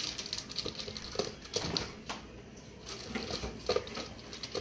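A young Labrador eating dry kibble from a plastic maze-ridged slow-feeder bowl: irregular crunching, with pieces of kibble clicking against the plastic.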